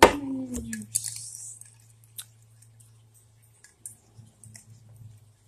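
A man's loud voiced cry falling in pitch, then a short hissing breath about a second in, from his lips burning after cinnamon and lemon juice. Then faint clicks and small sips as he drinks from a cup, over a low steady hum.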